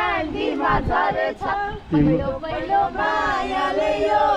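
A group of men and women singing a Nepali folk song together, unaccompanied, with several voices holding and sliding through long notes.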